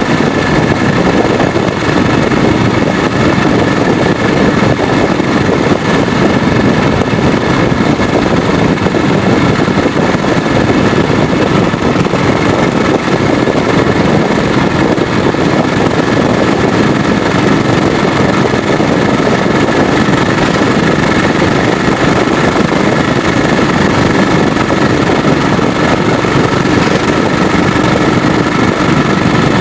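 BSA 441 single-cylinder four-stroke motorcycle engine running steadily while under way, mixed with a steady rush of wind and road noise.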